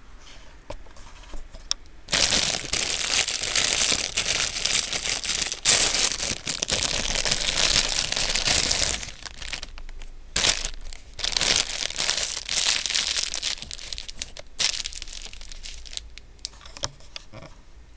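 Plastic bread wrapper crinkling and rustling as it is pulled open and the bun slid out. It comes in two long runs, starting about two seconds in, with a short pause about halfway, and dies away near the end.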